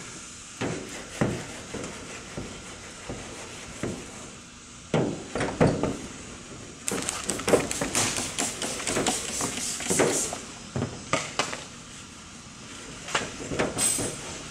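A clay bar rubbed by hand over the painted rear deck lid of a 1968 Chevrolet Camaro to lift epoxy paint overspray: a run of irregular rubbing strokes and light knocks on the panel, thickest in the middle stretch.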